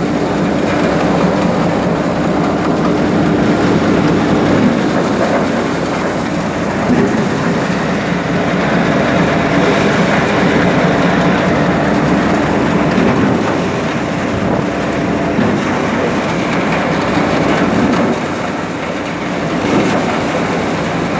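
Tractor-driven paddy thresher running steadily under load with a dense mechanical rattle as rice straw is fed through its threshing drum, the tractor engine running beneath it.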